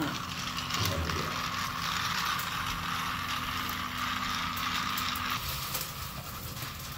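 Motorised toy train running along plastic track: a steady mechanical whir.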